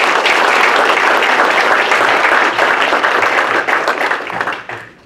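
Audience applauding, a dense run of many hands clapping that dies away near the end.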